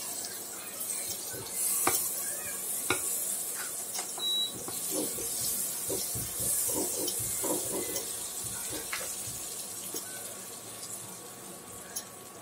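A cube of butter melting and sizzling in a hot non-stick frying pan, pushed around with a wooden spatula that scrapes and taps against the pan. The sizzle swells twice and eases off near the end.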